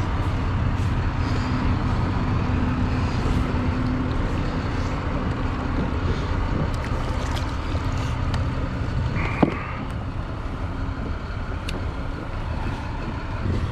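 Steady low rumble of road traffic on the highway bridge overhead, with a faint hum that comes and goes, over wind and water noise. One sharp knock about nine seconds in.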